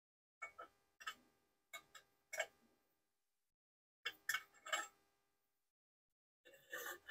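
Light metallic clicks and taps from a twist drill bit worked by hand through the bolt holes of an aluminium T5 transmission housing to clear out debris. The clicks come in small clusters, each with a short ring.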